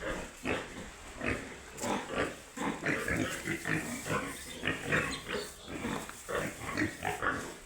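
Baby pigs grunting, with short calls following each other several times a second.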